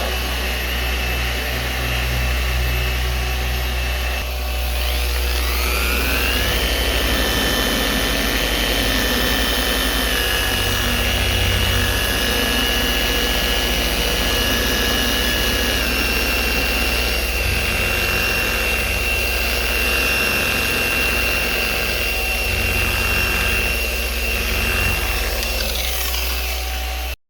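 Handheld electric machine polisher working on car paint: its whine rises as it spins up about five seconds in, then holds steady over a low rumble. The pitch dips slightly a couple of times and falls away just before the end.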